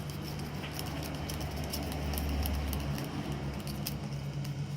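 Slime mixture of glue, hand wash and pink food colouring being stirred in a bowl, with faint light scraping and clicks over a steady low hum.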